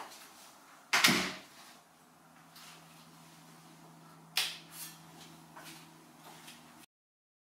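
A wooden workshop door swung shut with a heavy knock about a second in, then a sharper clack a few seconds later as the metal barn-door flaps of an overhead studio light are handled, with smaller knocks between and a faint steady low hum.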